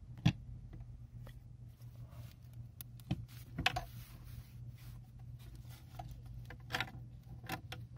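Irregular light clicks and clinks of steel clutch plates in a 6T45 automatic transmission's 2-6 clutch pack being handled and lifted out of the case, the sharpest about a quarter second in, over a steady low hum.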